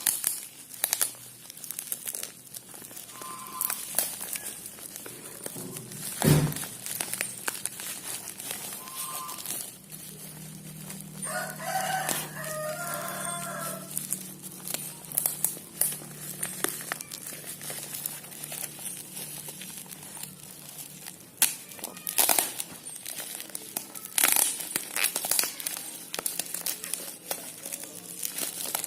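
Plastic packaging crinkling and tearing in sharp crackles as a horn package is unwrapped by hand, with a single thump about six seconds in. From about eleven to fourteen seconds in, a rooster crows in the background.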